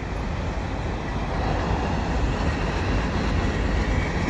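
Covered hopper cars of a freight train rolling past: a steady rumble of steel wheels on rail.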